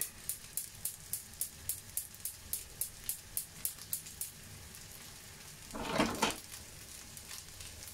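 Spark igniter of a gas cooker burner clicking about three times a second as the burner is relit after the flame went out; the clicking stops about four seconds in, and a short, louder rush of noise follows about six seconds in.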